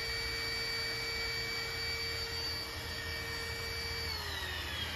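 Electric air pump running steadily with a constant whine over a low hum, then spinning down with a falling pitch about four seconds in.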